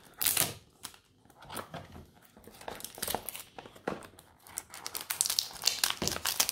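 Clear plastic wrap being picked at and peeled off a cardboard perfume box: crinkling and crackling with sharp ticks. A loud crinkle comes just after the start, it goes quieter for a couple of seconds, then the crinkling gets busier near the end.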